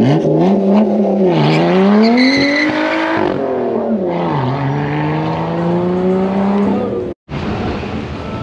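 Lotus Evora S's supercharged 3.5-litre V6 pulling away hard, its pitch rising, dropping at the shifts and climbing again through the gears. It cuts off abruptly near the end.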